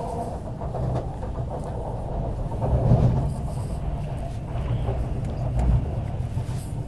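Interior running noise of a CRRC Qingdao Sifang metro train (MTR Q-Train) in motion: a steady low rumble of wheels on rails, swelling a little about three seconds in and again near five and a half seconds.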